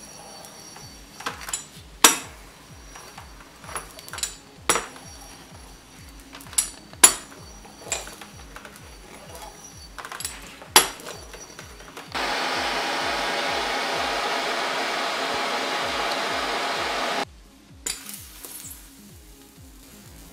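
A few sharp clinks and knocks of a heated steel roller against a computer monitor's plastic screen, then a steady loud hiss for about five seconds that starts and stops abruptly.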